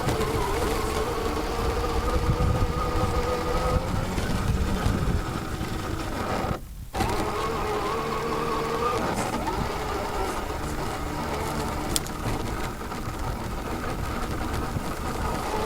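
Axial SCX10 II RC crawler's brushless electric motor and geared drivetrain whining as the truck crawls, the whine drifting slowly in pitch with throttle, over rough rolling noise. The sound drops out briefly about seven seconds in, an audio glitch.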